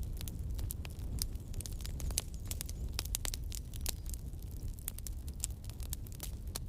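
Campfire burning: wood crackling and popping in quick, irregular snaps over a low, steady rumble of flames.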